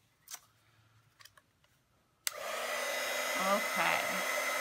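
Craft embossing heat gun switched on about halfway through, then blowing steadily: a loud rush of hot air with a steady motor hum and whine, melting gold embossing powder on the card. Before it, a few faint taps.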